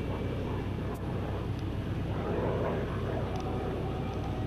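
Radial-engined World War II warbird running steadily, its engine sound swelling briefly about halfway through.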